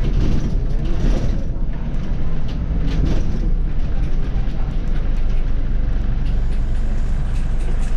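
Scania OmniCity city bus on the move at low speed, heard from the driver's seat: a steady low engine and running rumble, with light clicks and rattles from the cab now and then.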